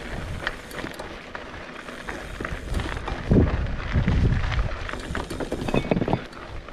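Mountain-bike ride noise: wind rumbling in gusts on the microphone, loudest about halfway through, over the bike's irregular clicks and rattles on rough ground.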